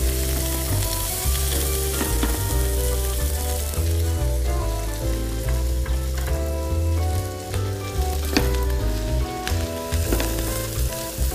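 Split spiny lobster halves searing in oil in a very hot frying pan, a steady sizzle of frying. Under it runs background music with a low bass line.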